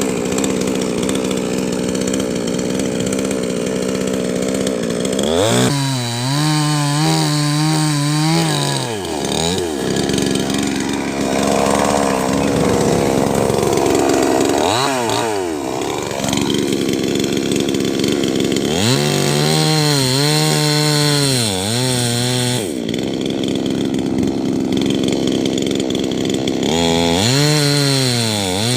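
Chainsaw running at speed and cutting wood. In three spells its engine pitch wavers and sags as the chain bites under load, then recovers.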